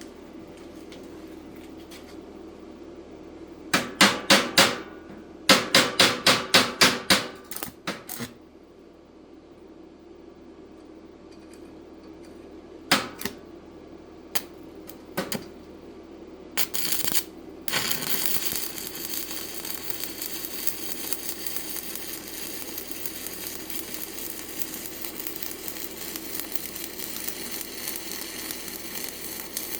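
Chipping hammer striking slag off a weld bead: a burst of four strikes, then a faster run of about seven, then a few single knocks. A little past halfway a stick-welding arc on a 7018 rod at about 110 amps strikes and settles into a steady sizzling crackle.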